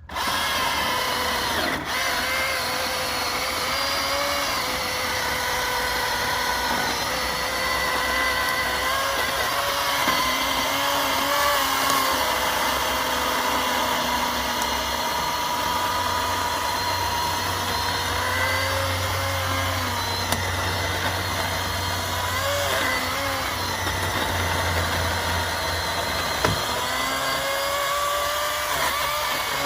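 Milwaukee Fuel cordless chainsaw running under load through a large log, its motor whine sagging in pitch as the chain bites and picking back up.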